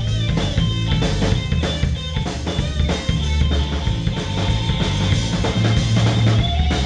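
A band playing, led by a drum kit: bass drum and snare beating steadily under held notes from pitched instruments.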